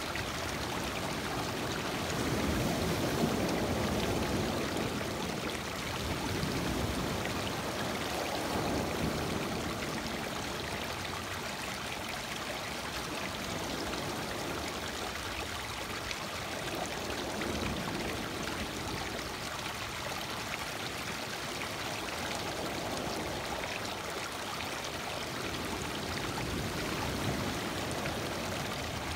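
Lake water washing in over a cobble shore and running between the stones: a steady rush of water that swells a little now and then as small waves come in.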